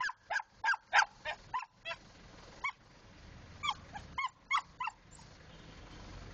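Jack Russell terrier barking: over a dozen short, high-pitched yaps in quick runs with brief pauses, stopping about five seconds in.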